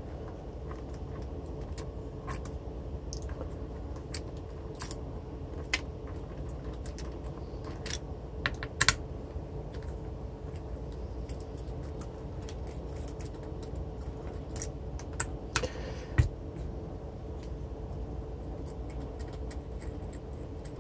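Scattered light metallic clicks and clinks of hand tools and small parts while a three-phase alternator is taken apart, over a steady low hum.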